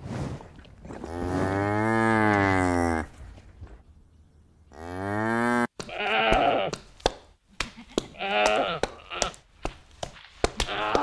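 Cow mooing: one long call that rises and falls, then a shorter rising moo about five seconds in that cuts off suddenly. After that come quavering bleats from livestock, with many sharp clicks among them.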